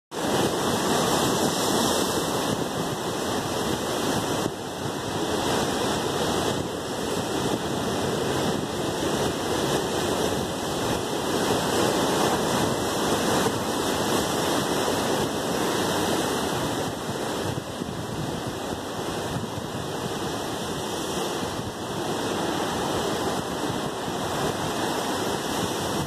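Atlantic surf breaking over rocks and foaming through the channels between them: a continuous rush of water that swells and eases slightly.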